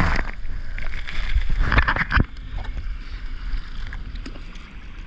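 Seawater splashing and sloshing against a surfboard and the camera, with wind buffeting the microphone; two louder splashes, at the start and about two seconds in, then a quieter steady wash.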